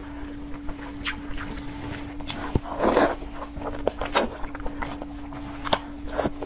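Close-miked eating sounds: wet chewing and mouth clicks, with a loud slurp of noodles about three seconds in. A steady low hum runs underneath.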